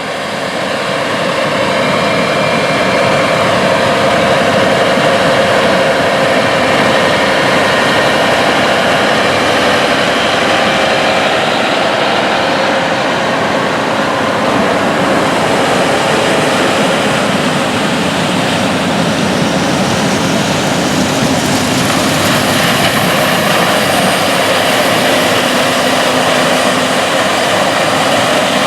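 Big diesel farm machinery working a cornfield: a loud, steady engine and machinery drone that fades in over the first second or two. A brighter hiss comes up in the second half.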